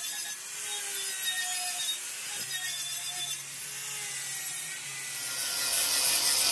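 Handheld angle grinder with a sanding disc running against an aluminium alloy wheel rim, smoothing down the repaired area. It gives a steady hiss with a faint wavering motor whine, and gets louder about five seconds in.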